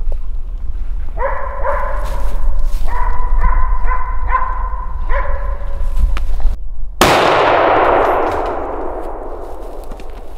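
A dog barks in short repeated bursts at the stag it has found. About seven seconds in comes a single loud hunting-rifle shot, its report echoing away for a few seconds.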